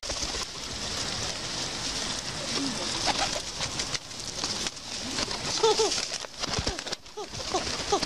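Feral pigeons cooing and flapping their wings close by, with short curved calls from about a third of the way in and a few sharp wing-beat noises over a steady rustling hiss.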